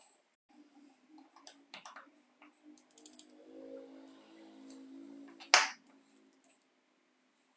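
A small metal pick clicking and scraping against the plastic housing of a pencil sharpener's helical cutter assembly: scattered sharp clicks, with a louder snap about five and a half seconds in.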